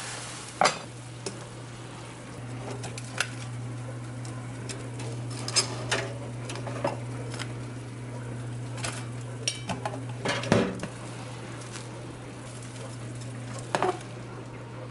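Kitchen cooking sounds: metal tongs clinking against a saucepan and a toaster-oven rack while hot dogs simmer in boiling water, with scattered sharp clinks, the loudest a little past the middle and near the end, over a steady low hum and bubbling hiss.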